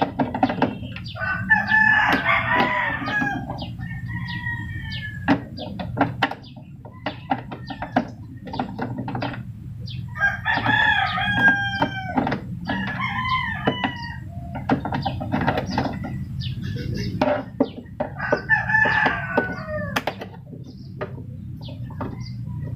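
A rooster crowing several times, with a few separate clucks between the crows, over a steady low background hum. Short clicks and knocks of a screwdriver working the screws of a CRT television's plastic back cover run between the crows.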